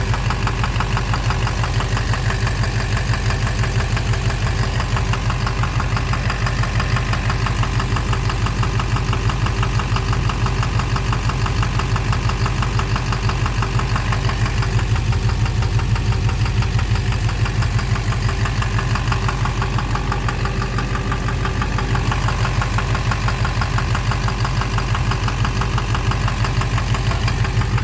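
Duramax LMM 6.6-litre V8 turbo-diesel idling steadily with a rhythmic knock. The owner reads the knock as coming from the engine, possibly its bottom end.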